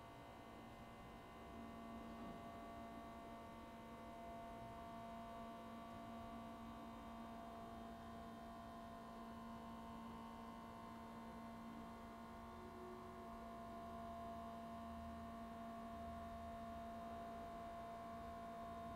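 Faint steady electrical hum made of several constant tones, with no change or interruption.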